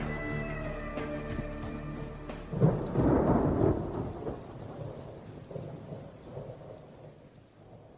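Rain falling steadily, with a loud clap of thunder about two and a half seconds in that rumbles and dies away, while the last notes of a song fade out in the first two seconds. The rain then fades out gradually.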